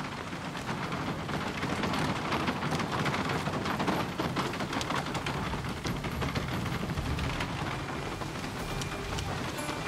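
Wooden carriage wheels rattling over a street amid hurried footsteps, a dense, steady clatter of many small knocks.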